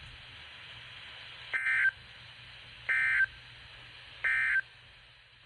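Three short bursts of Emergency Alert System SAME data tones, about 1.3 s apart, over a steady hiss. Three brief bursts after the spoken message are the end-of-message (NNNN) signal that closes an EAS weather alert.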